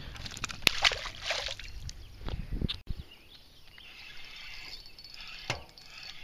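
A largemouth bass let go back into the lake with a brief splash about a second in, followed by low knocks and bumps from handling, and a single sharp click near the end.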